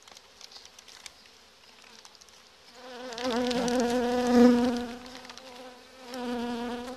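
Honeybee flying close to the microphone: a loud buzz that comes in about three seconds in, swells and fades, then returns briefly near the end.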